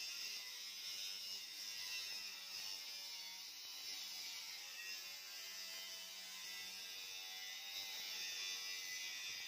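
Angle grinder with a cut-off disc cutting a long straight line through steel sheet: a steady, high grinding hiss from the disc in the metal over the motor's running.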